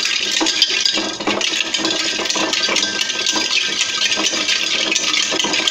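Ice cubes stirred in a jug with a little water, rattling and clinking against its sides in a fast, steady run of small clinks.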